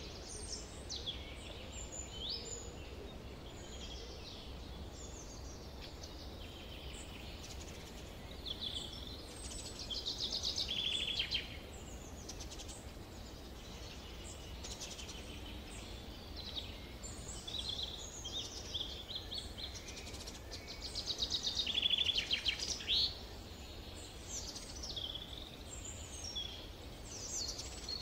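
Several songbirds singing and calling in a summer forest: scattered chirps and whistles throughout, with two louder songs of fast repeated notes, one about ten seconds in and one about twenty-one seconds in. A faint low rumble runs underneath.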